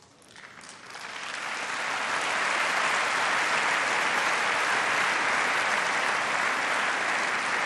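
Applause from a large seated assembly, swelling over the first couple of seconds and then holding steady.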